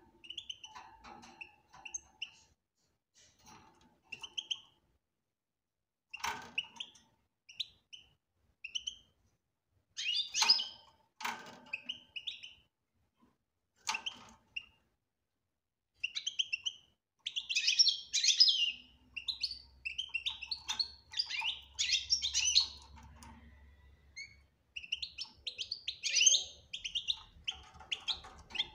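European goldfinch chirping and twittering in a cage, with short separate calls at first and a busier, louder run of twittering in the second half. A few sharp clicks fall among the calls.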